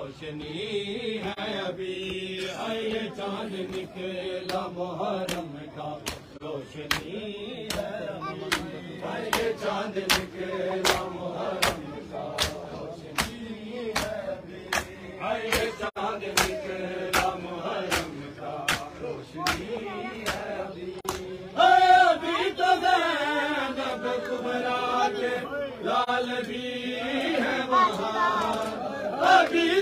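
Crowd of men chanting a noha in unison while beating their chests in matam, the sharp hand-on-chest slaps keeping a steady beat a little under two a second. About two-thirds of the way through, a louder lead voice comes in over the chant.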